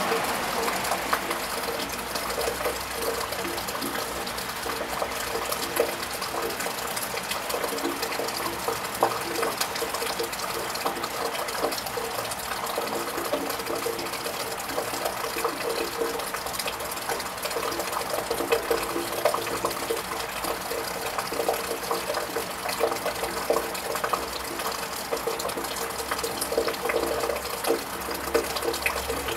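Steady rain falling on a wet tiled roof, with water running and many small drips ticking.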